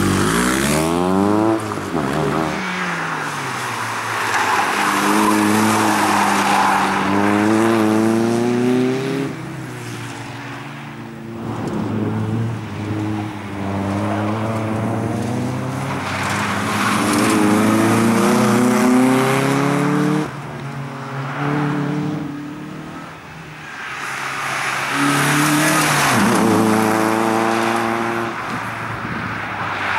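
Nissan Sunny's four-cylinder engine revved hard in second gear, its pitch climbing and dropping in about four runs as the car is flung through tight turns, with tyres squealing and scrubbing at the peaks.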